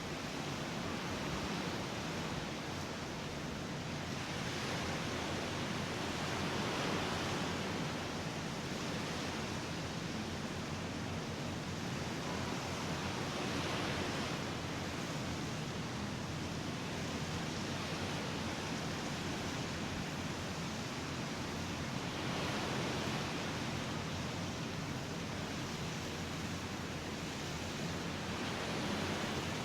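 Ocean surf washing onto a beach: a steady hiss of water that swells every seven or eight seconds as waves break and run up.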